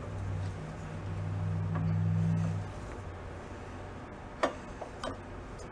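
A low steady hum that cuts off a little under three seconds in, then a few light metallic ticks as a large soldering iron is worked around a fitting being soldered into a sheet-metal gas tank.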